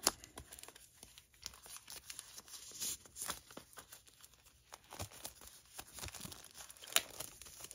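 Plastic shrink-wrap being torn and peeled off a Blu-ray mediabook case: faint, irregular crinkling and crackling, with a sharper snap about seven seconds in.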